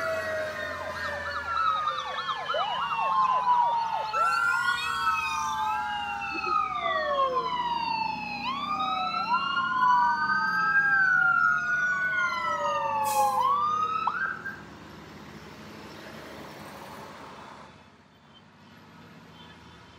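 Several emergency sirens sounding at once, from a fire engine and a police car, mixing slow wails with rapid yelps. The sirens stop about two-thirds of the way through, leaving a quieter steady vehicle noise.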